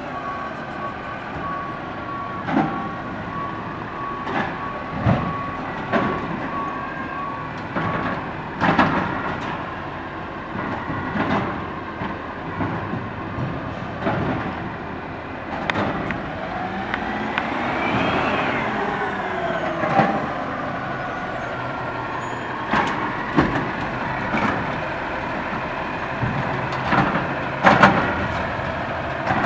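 Autocar ACX garbage truck with a DaDee Scorpion automated side-loader working: its engine runs while a reversing beeper sounds for the first several seconds as it backs up. Around the middle the pitch rises and falls back as the engine revs, and sharp clanks of the arm and carts recur, loudest near the end as a cart is tipped into the hopper.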